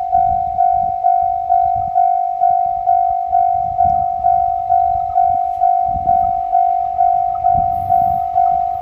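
Japanese railway level-crossing alarm ringing its steady electronic 'kan-kan' tone, a little over two strikes a second, each fading before the next. An irregular low rumble sits underneath.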